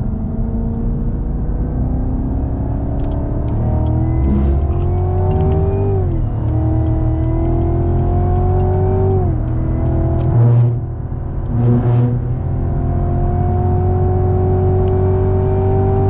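Cadillac CTS-V's supercharged 6.2-litre LT4 V8 under hard acceleration, heard from inside the cabin. The engine note climbs and drops back at upshifts about six and nine seconds in, surges unevenly twice around ten to twelve seconds, then climbs steadily again through the rest.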